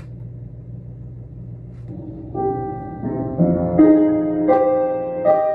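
Piano accompaniment begins about two seconds in with a slow introduction of held, overlapping chords and single notes. Before it there is only a low steady hum.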